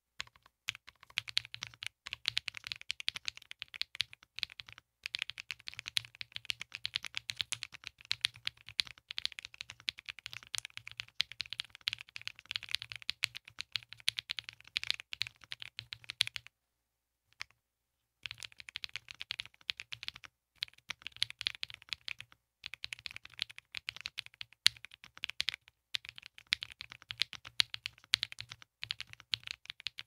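Fast typing on a Monsgeek M2 aluminium mechanical keyboard with lubed Akko Cream V3 switches and Akko Cream keycaps, its case filled with polyfill: a dense run of keystroke clacks. There is a pause of about a second and a half just past the middle. The owner finds the pitch a bit high.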